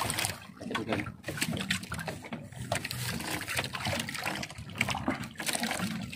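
A wet fishing net being handled inside a small boat: water trickling and dripping, with many scattered clicks and knocks against the hull.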